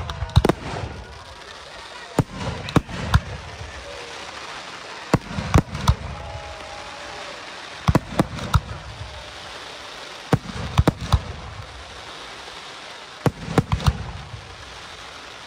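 Aerial fireworks shells going off in pairs: sharp bangs in clusters of two or three every two to three seconds, each followed by a low rolling rumble of echo, over a steady hiss.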